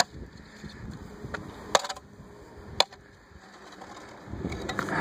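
A few sharp, isolated taps, most likely the metal blade of a long-handled ice chopper knocking on an iced-over sidewalk as it is carried along. A louder rustling, handling-type noise builds near the end.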